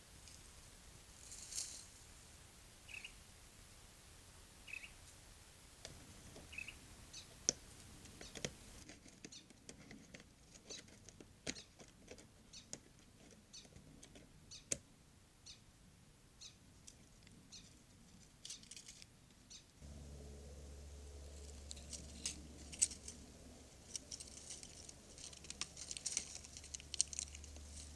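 Faint outdoor ambience: scattered light clicks and rustles, with three short high bird chirps a couple of seconds apart in the first few seconds. A low steady hum starts about two-thirds of the way in.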